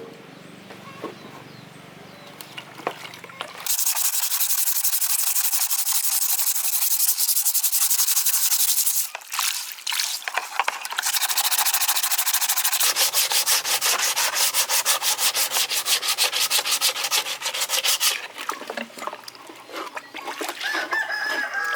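Hand sanding of a part: fast, even back-and-forth rubbing strokes that start about four seconds in, break off briefly midway, and stop a few seconds before the end.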